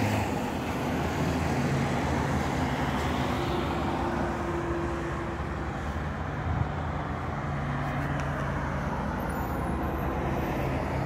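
Road traffic on the adjacent highway: a steady wash of vehicle engine hum and tyre noise as cars, a van and a motorcycle go by.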